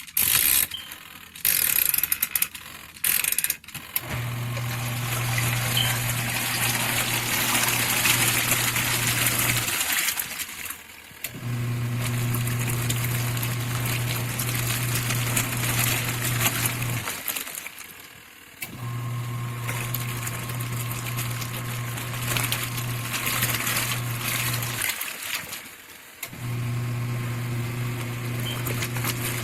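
Portable mini washing machine running with water churning in the tub. Its motor hums in stretches of about six seconds and stops briefly between them, the stop-and-go of a wash cycle's pulsator. A few loud knocks come in the first few seconds.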